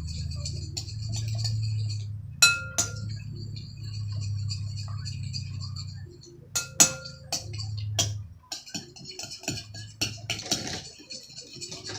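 A spoon stirring slime mixture in a bowl, clinking sharply against its side a few times, then scraping and clattering around the bowl near the end. A steady low hum runs underneath and stops about two-thirds of the way through.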